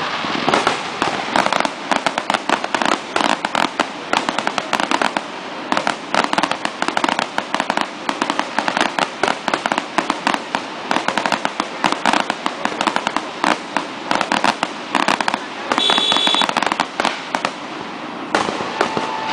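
Fireworks display: a dense, continuous barrage of rapid bangs and crackling from aerial shells bursting.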